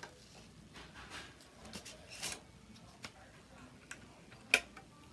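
A 5.25-inch floppy disk being handled and slid into a 5.25-inch floppy drive's slot: faint scrapes and small clicks, with one sharp click about four and a half seconds in.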